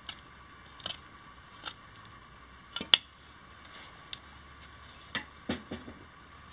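Pathfinder Scout knife whittling a wooden stick, short sharp clicks of blade biting wood about a second apart, then a louder, sharper click about three seconds in as the knife is laid on stone paving, and a few lighter clicks after.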